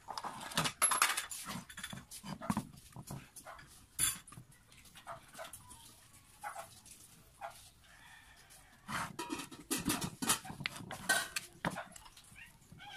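Handling noise from a small electric water pump: irregular clicks, knocks and rubbing as the metal pump body and its capacitor are turned over and handled.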